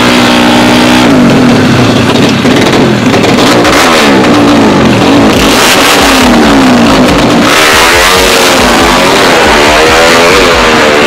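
Drag-prepped underbone motorcycle with a horizontal-cylinder engine, 57 mm bore on the stock stroke, revved hard and repeatedly, its pitch climbing and dropping many times, faster and more often in the last few seconds. At times a loud hissing rush joins it.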